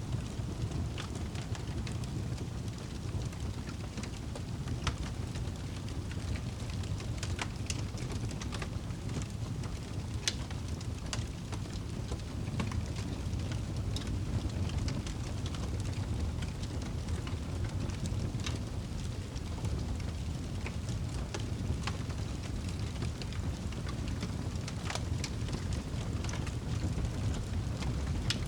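Wood fire burning in a fireplace: scattered sharp crackles over a steady low rumble of the flames.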